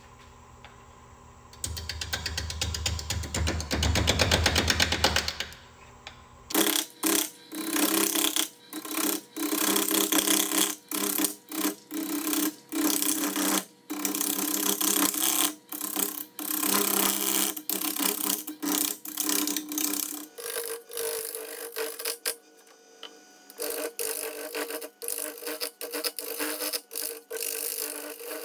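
A wood lathe turning while a turning tool cuts the spinning wood in short, repeated passes, with brief breaks as the tool lifts off. About two seconds in there are a few seconds of a fast buzzing machine sound.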